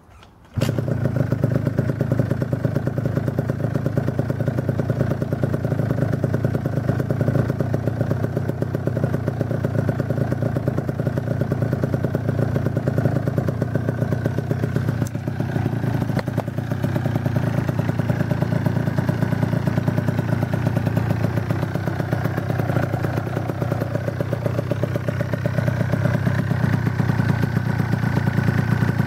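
Two-stroke engine of a tuned Yamaha Aerox scooter running steadily on its first run after the build, through an aftermarket performance exhaust. It comes in abruptly about half a second in.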